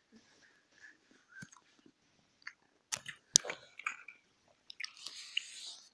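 Chewing a mouthful of pineapple close to the microphone: faint wet mouth clicks and smacks, with a few sharper clicks about three seconds in. Near the end a rustling noise starts.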